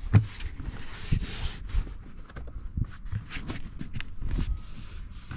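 Plastic interior trim being handled and pressed back into place: irregular knocks, taps and rustling.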